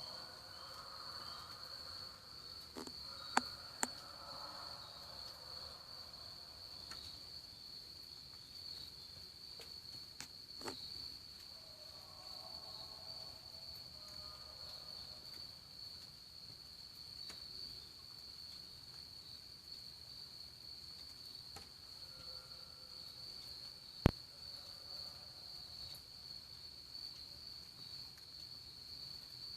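Steady, high-pitched, unbroken chorus of night insects such as crickets or katydids in the woods. Fainter, lower pitched calls come and go a few times, and there is one sharp click late on.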